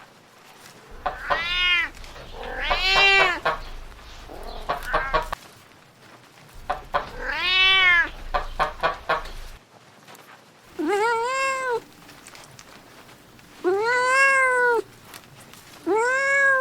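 A cat meowing again and again, about seven drawn-out meows, each rising then falling in pitch; the last few are lower and held longer.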